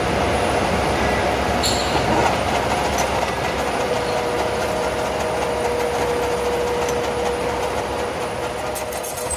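Metal lathe cutting into a spinning 25 mm metal plate under coolant: a steady cutting and machine noise, with a thin steady whine from the tool joining about four seconds in and fading near the end.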